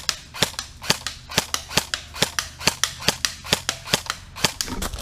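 Airsoft rifle firing single shots in a steady rhythm, a little more than two shots a second, about eleven in all.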